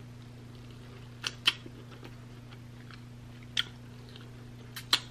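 Close-miked eating of a honey-glazed lamb chop: chewing and biting meat off the bone, with a few short wet mouth clicks, a pair about a second and a half in, one in the middle and two near the end. A steady low hum runs underneath.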